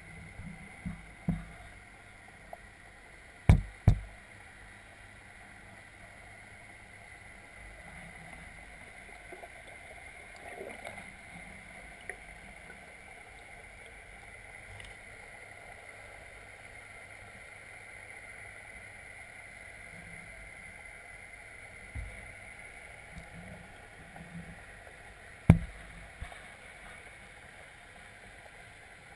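Muffled underwater sound of a fish pond picked up by a submerged camera: a steady hum with a few sharp knocks, the loudest a pair about three and a half seconds in and another near twenty-five seconds.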